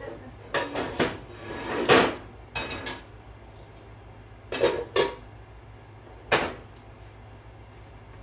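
Cookware clattering and knocking on a kitchen stovetop: a run of knocks and rattles in the first three seconds, the loudest about two seconds in, then three sharp knocks a little later.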